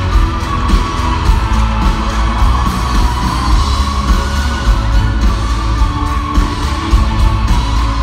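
Live indie-rock band playing through a festival PA, heard from the crowd: heavy, booming bass, a steady drum beat and guitar, with a woman singing over it.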